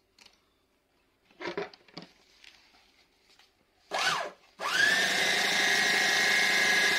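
Revo Model DA portable bag closer sewing a woven sack: a few light handling knocks, a brief burst of the motor about four seconds in, then the motor whining up to speed and running steadily as it chain-stitches across the bag.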